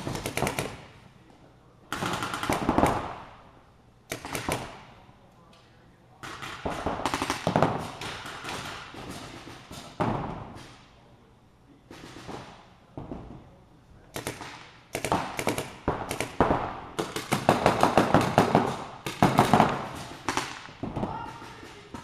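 Paintball markers firing reballs in rapid strings of shots, several bursts one after another with short pauses between them, the longest and densest run about two thirds of the way through.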